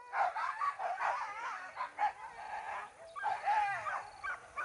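A pack of boar-hunting dogs yelping and baying, several voices overlapping, in two stretches with a short lull about two seconds in.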